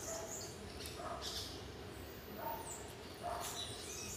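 Birds chirping, with three faint short sounds about one, two and a half and three and a half seconds in.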